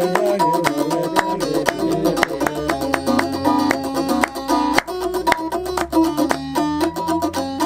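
A Nubian kissir, a wooden lyre, plucked in a repeating melodic pattern, with steady hand clapping keeping the beat.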